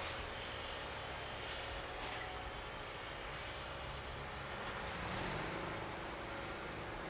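Small electric motor of a radio-controlled toy car running with a steady whir; its pitch shifts about five seconds in.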